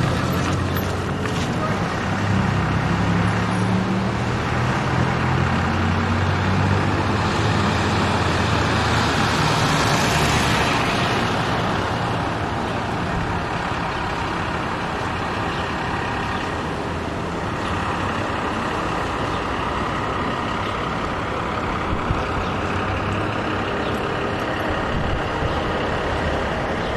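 Street traffic: a vehicle engine hums low close by for the first ten seconds or so, then a passing vehicle swells louder about ten seconds in, and steady traffic noise follows.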